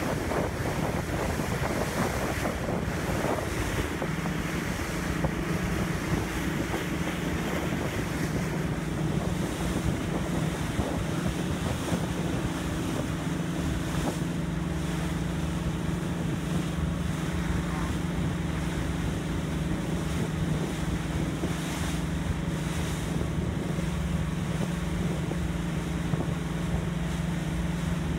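Fishing boat under way: its engine drones steadily while water rushes past the hull and wind buffets the microphone.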